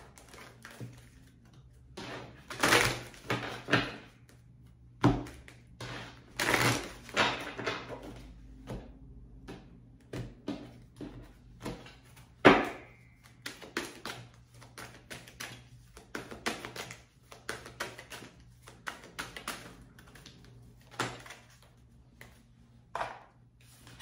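A deck of oracle cards being shuffled and handled on a wooden tabletop: a long run of light clicks and card rustles, with louder shuffling rustles around three and seven seconds in and a sharp tap of the deck on the table about twelve seconds in.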